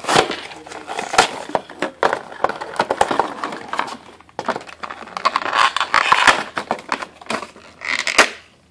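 A toy figure's clear plastic blister packaging and cardboard box being handled and pulled apart: irregular crackling, crinkling and sharp plastic clicks, with a louder rustle near the end.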